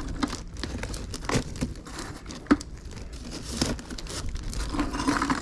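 Rustling and crinkling as pulled scrap finds are handled, with scattered light clicks and one sharp knock about two and a half seconds in.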